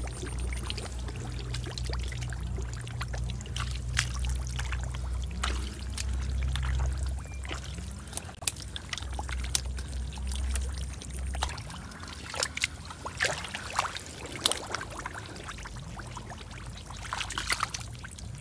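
Hands splashing and sloshing through shallow muddy pond water while groping in the mud for fish, with irregular small splashes and trickles. A low steady hum underneath stops about eleven seconds in.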